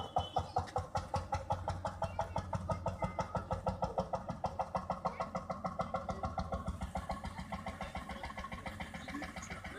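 Vintage tractor engine running at low speed, with a steady beat of about seven pulses a second that grows a little fainter near the end.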